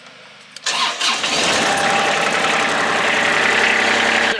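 Kubota D1105 three-cylinder diesel on a ride-on vacuum starting: a faint hum of the electric fuel pump priming, then the starter cranks and the engine catches within about a second and settles into a steady run.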